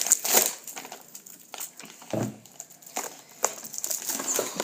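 Irregular crinkling and crackling from hands working material at close range, with scattered sharp clicks and a dull thud about two seconds in.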